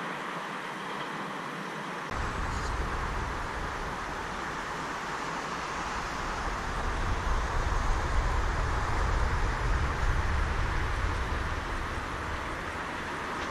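Steady noise of distant vehicles. A deep low rumble comes in about two seconds in, and the level swells somewhat in the second half.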